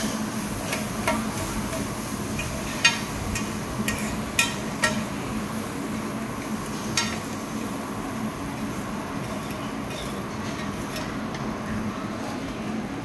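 Fried oyster omelette sizzling on a large iron griddle pan while a plate is scraped along the pan to scoop it up. The plate's rim clinks sharply against the metal several times in the first seven seconds, over a steady hum.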